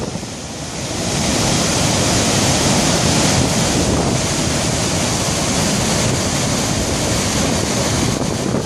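Gullfoss waterfall: a loud, steady rush of whitewater pouring over the rock steps of the falls, swelling a little about a second in.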